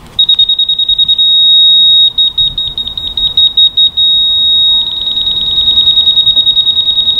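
Laser level receiver on a grade rod beeping at a high pitch: rapid beeps of about ten a second, twice giving way to a steady tone, the receiver's signal for being near or on the laser's grade line.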